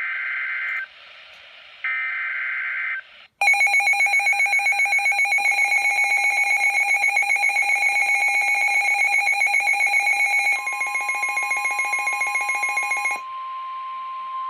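Two short bursts of NOAA Weather Radio SAME digital header tones. Then a weather radio receiver's loud, rapidly pulsing alert alarm sounds. About ten seconds in, the steady single-pitch 1050 Hz NOAA warning alarm tone starts and carries on alone near the end. Together they signal that a warning is about to be broadcast.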